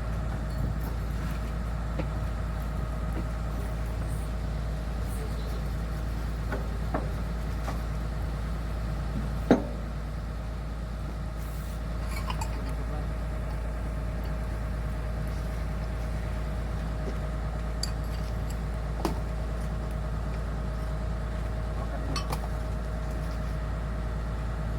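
Hitachi ZX210-5G excavator's diesel engine running steadily at idle, with a steady whine over the rumble. Scattered light metal clinks and one sharp metal knock about nine and a half seconds in.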